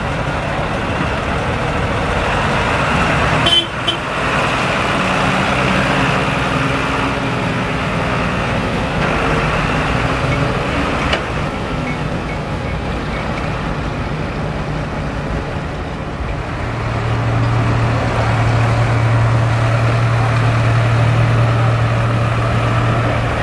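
Diesel farm tractors running as they drive past one after another, a continuous engine hum. A short sharp sound cuts in about three and a half seconds in, and a steady low engine drone grows louder from about two-thirds of the way through.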